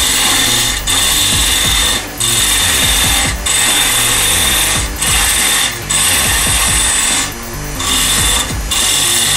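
Wood lathe roughing out a spinning piece of ash: the turning tool's steady scraping hiss as it cuts into the wood, with a steady high whine underneath. The cut breaks off briefly about every second or so as the tool is eased off the wood.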